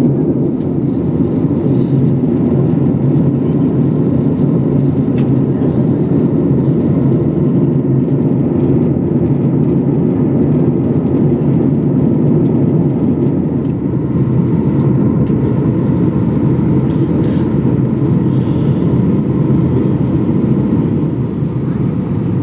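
Steady engine and airflow noise heard inside the passenger cabin of a Boeing 737 airliner, a constant low rumble with no clear change in pitch.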